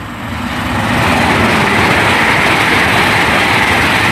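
Great Western Railway Class 800 IET train passing through the station at speed without stopping. Its rushing noise builds over about the first second, then holds loud and steady.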